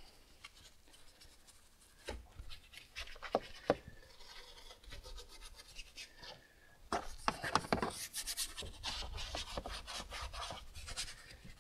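A small detailing brush scrubbing the plastic fluid and oil-filler caps in an engine bay: a few faint taps, then a quick run of short scratchy strokes starting about seven seconds in.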